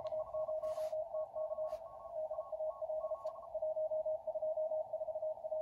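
Morse code (CW) signals coming from the speaker of a uBITX ham transceiver with its CW audio filter switched out: one station's keyed tone is loudest, and a second station keys at a higher pitch alongside it. With the filter out, the wide passband lets the extra signals through.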